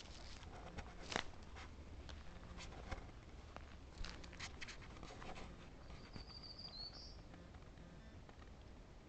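Faint scattered clicks and crackles, with one short high bird trill about six seconds in.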